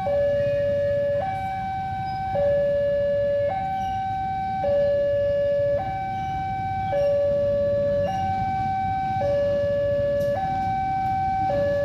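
Railway level-crossing warning alarm sounding for an approaching train: an electronic two-tone signal alternating between a lower and a higher note, each held a little over a second. A low rumble runs underneath.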